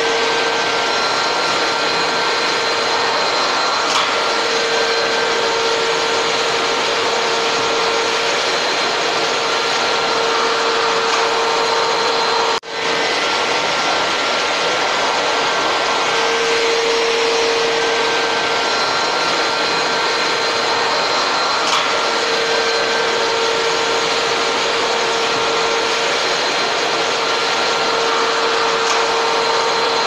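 Canister vacuum cleaner running steadily: a constant rush of air with a steady motor whine. The sound cuts out for an instant about twelve seconds in and comes straight back.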